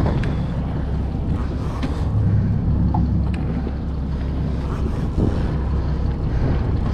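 Steady low rumble of wind buffeting the microphone over a boat's engine running at idle.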